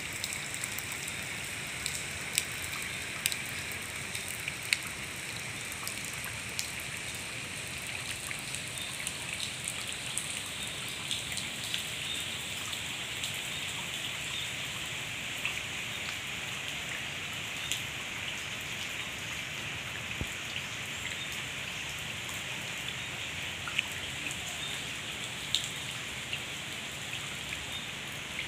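Steady rain falling on wet concrete and puddles: a constant hiss with scattered sharp drop impacts, a few of them louder and close by.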